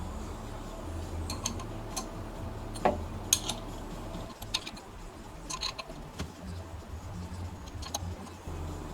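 Scattered light metallic clicks and clinks, as of small metal parts or tools being handled, over a low steady hum that drops out about four seconds in and comes back near the end.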